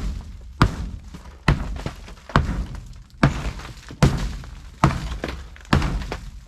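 A steady series of heavy blows, about one a second, each a sharp thunk with a short ringing tail.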